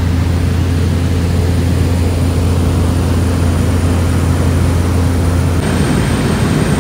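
Cabin noise of a Cessna Grand Caravan single-engine turboprop in cruise: a loud, steady drone of the engine and propeller with a strong low tone. The tone shifts slightly near the end.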